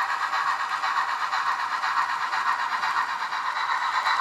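Soundtraxx Tsunami sound decoder in a model narrow-gauge steam locomotive coasting downgrade, played through the locomotive's small speaker. With the load off, the exhaust chuff has died down and the light, quick beat of rod clank comes through in a steady rhythm.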